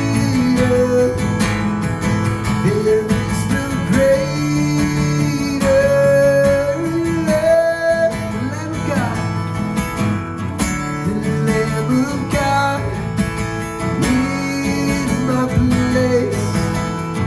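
Worship band playing an instrumental passage of a song, led by acoustic guitar, with sustained chords under a held melody line.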